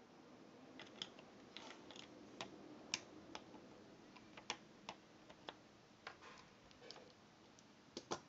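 Scattered light clicks and taps of steel locking pliers working a brass nozzle loose from a plastic pump sprayer, over faint room hum. Two quick clicks come close together near the end.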